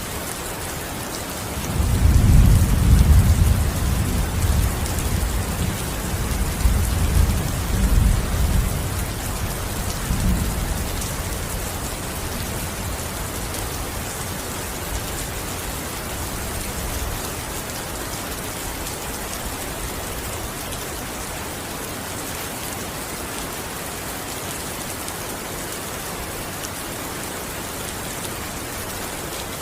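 Steady heavy rain, with a long rolling rumble of thunder starting about two seconds in that swells several times and dies away after about ten seconds, leaving only the rain.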